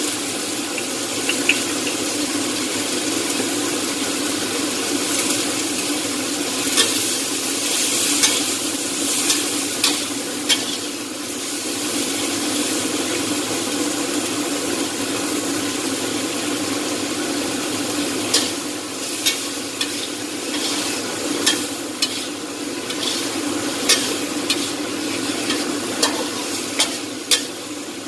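Long beans sizzling as they stir-fry in a steel wok, with a metal turner scraping and clicking against the pan now and then, more often in the second half.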